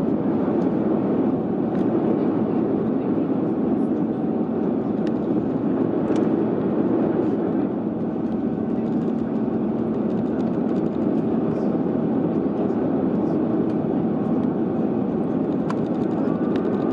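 Steady cabin noise of an airliner in flight: the even rush of jet engines and airflow heard from inside the passenger cabin, with a low steady hum under it.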